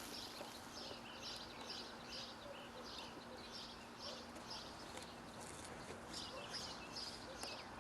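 A small bird chirping over and over, short high notes about two a second, faint against outdoor background noise and a thin steady hum.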